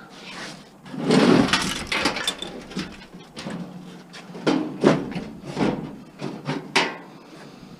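Irregular metal knocks and scraping as a stuck part is worked loose by hand from scrap being dismantled, with a rough scrape about a second in and several sharp knocks later.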